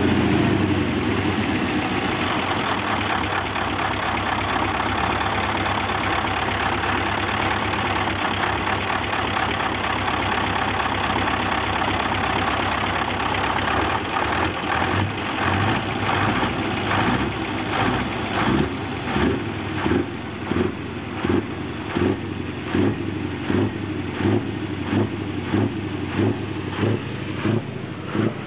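Scania R500's V8 diesel engine running loud through a straight-piped exhaust. It is steady at first; from about halfway its sound swells in regular pulses about once a second.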